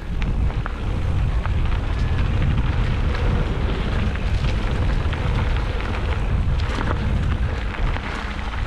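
Mountain bike rolling fast over rough dirt and rock: a heavy low rumble with crackling and rattling clicks from the tyres and bike. It jumps up sharply at the start and stays loud throughout.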